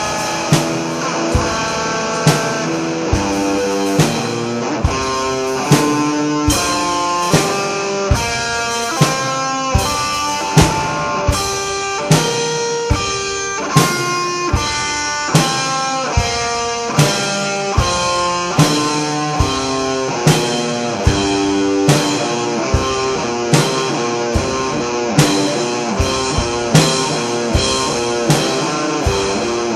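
Instrumental rock music: a guitar plays a moving melodic line over a drum kit keeping a regular beat.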